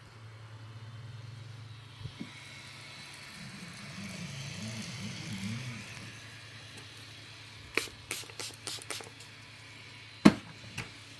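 FDM 3D printer starting a print as it heats up: a steady fan hum, with stepper motors whirring at a wavering pitch a few seconds in as the print head moves. A quick run of sharp clicks comes about eight seconds in, and a single loud click near ten seconds.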